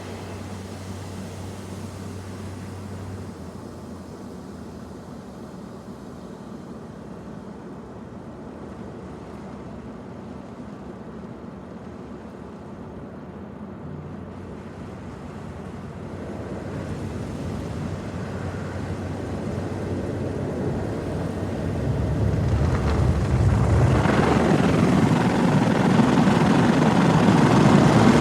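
Car wash machinery running with a steady rushing, whirring noise. It grows louder from about halfway through and is loudest over the last few seconds.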